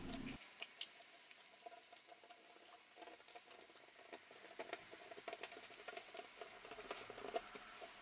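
Faint crackling and rustling of baking paper and thin dried fruit leather as fingers handle and peel the strips, a scatter of small irregular clicks.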